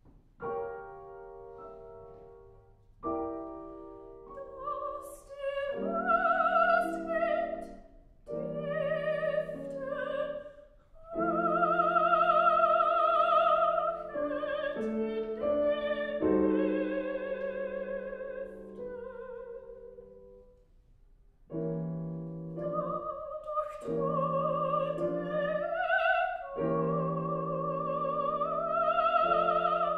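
A grand piano plays two soft, sustained chords out of silence. Then a soprano with a wide vibrato enters and sings a slow German art song (lied) over the piano accompaniment, pausing briefly about two-thirds of the way through.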